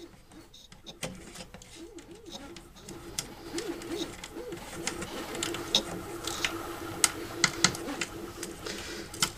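An M5 bolt being screwed into a T-nut with a hex key: a scattered run of small metallic clicks and taps as the key turns and shifts in the bolt head, over a faint steady hum.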